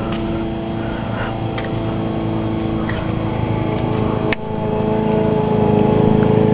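Car engine running steadily, with a single click about four seconds in, after which it runs a little louder.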